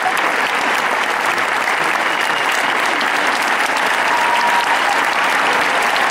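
Audience applauding steadily at the end of a pole dance routine, with a thin held high note joining about four seconds in.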